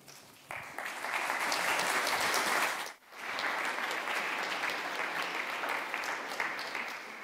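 Audience applauding, beginning about half a second in, cutting out for an instant around the middle, then picking up again and fading away near the end.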